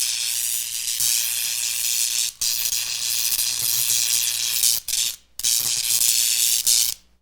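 Synthesized sci-fi sound effect: a loud, wavering hiss like venting steam, over a faint low hum. It breaks off briefly a few times and cuts off abruptly near the end.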